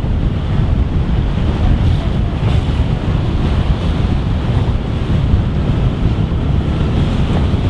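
Steady wind rumbling on the microphone over the rush of sea water, aboard a sailing ketch under way in about 15 knots of wind.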